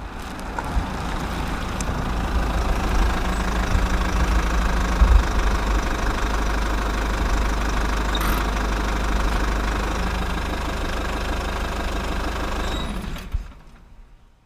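A steady, loud, engine-like rumble, heaviest in the low end, that trails off about thirteen seconds in.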